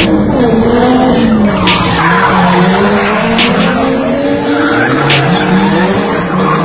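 Car drifting: the engine revs rise and fall while the tyres squeal and skid.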